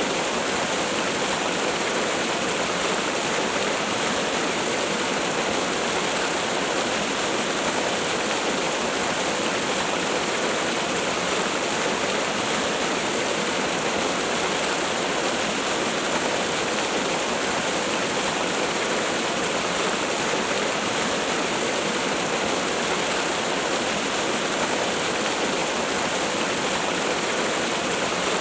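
Waterfall: a steady rush of falling water, even and unchanging throughout.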